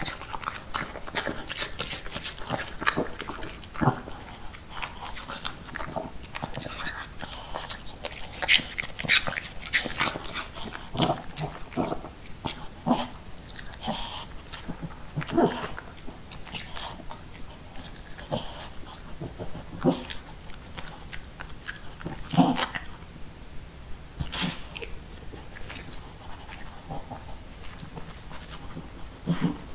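Miniature pinscher chewing and crunching pieces of apple: irregular wet crunches and clicks of the teeth, with the dog sniffing about the plate and towel for more.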